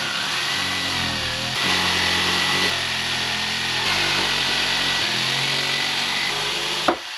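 Corded jigsaw running as it cuts through a wooden panel, its motor note shifting a few times under load. It stops shortly before the end.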